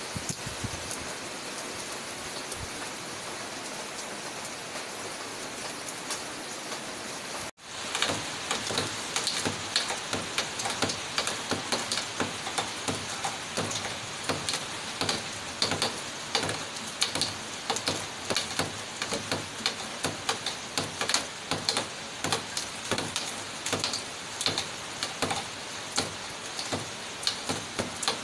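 Heavy rain falling steadily. After a brief break about a third of the way in, many sharp, irregular drop impacts on a hard surface close by stand out over the steady rain.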